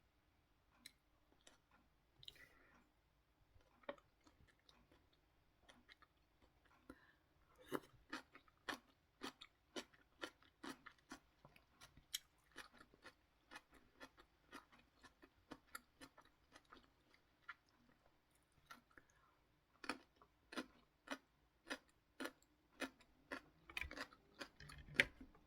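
Close-miked eating of instant ramen: quiet, wet chewing clicks that come in runs of about two or three a second, sparse at first and thicker from about a third of the way in.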